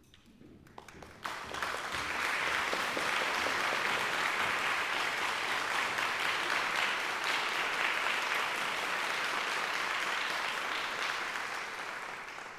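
Audience applauding: a few scattered claps at first, swelling within about a second to steady applause, which dies away near the end.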